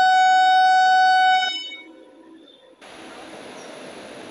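An Indian Railways WAP-4 electric locomotive's horn gives one long, steady blast that cuts off about a second and a half in. After a short lull, a steady rushing train noise starts abruptly near the three-second mark.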